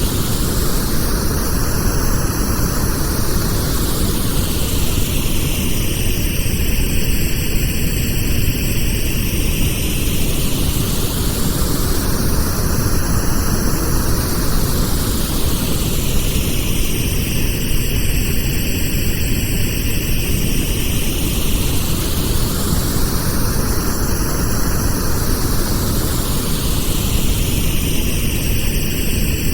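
Pink noise for masking tinnitus: a steady, deep-toned hiss with a slow whooshing sweep that rises and falls about every eleven seconds.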